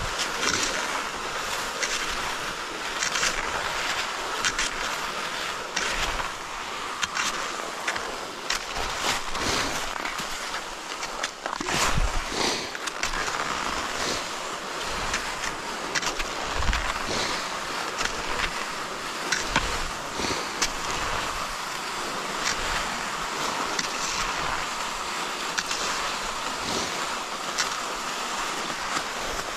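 Cross-country skis gliding and scraping over a groomed snow trail, a steady hiss broken by irregular clicks of ski poles planting, with low rumbles of wind on the microphone.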